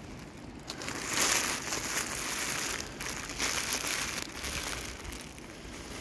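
Plastic trash bag rustling and crinkling as it is handled, in two louder bursts: about a second in and again around three and a half seconds in.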